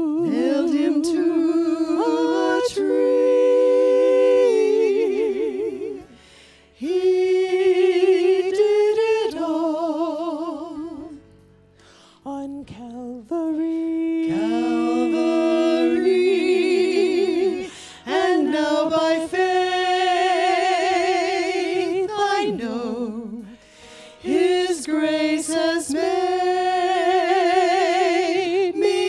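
Three women singing a song together into microphones, unaccompanied, with vibrato on held notes and phrases broken by short pauses.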